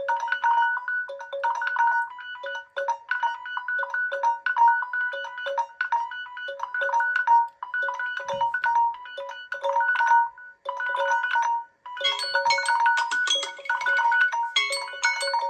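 A Samsung phone's electronic alarm melody: a short chiming phrase repeating over and over. About twelve seconds in, it gives way to a brighter, busier tone with higher notes.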